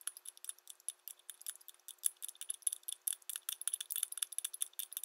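Hand ratchet clicking in quick, uneven runs as the bolts holding down a turbo's compressor plate are turned in. The clicks come sparsely at first and get much denser about two seconds in.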